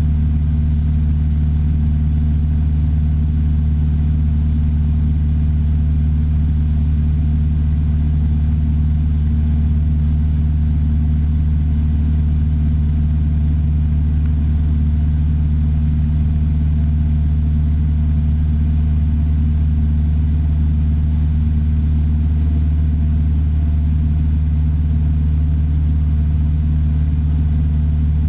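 Piper Warrior III's four-cylinder Lycoming O-320 engine and propeller droning steadily, holding constant power with no change in pitch.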